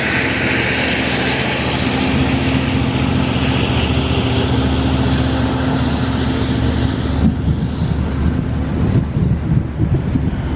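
A stationary commuter train's steady low mechanical hum, with a hiss that fades over the first several seconds and wind buffeting the microphone near the end.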